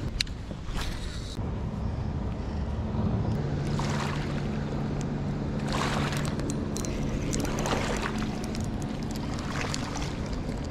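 Wind buffeting the microphone while a fishing rod and spinning reel are handled, with scattered sharp clicks. A low, steady motor hum runs through the middle and fades near the end.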